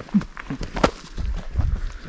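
Hikers' footsteps on a dirt forest trail: a few separate steps, with low thuds about a second and a half in.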